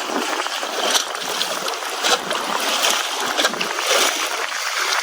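Sea water washing and splashing against a rock wall, with several short splashes standing out about once a second over a steady wash.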